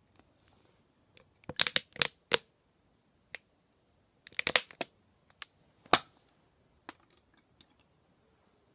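Thin plastic water bottle crackling and clicking as it is handled and squeezed, in two short clusters of sharp clicks with a few single clicks between and after.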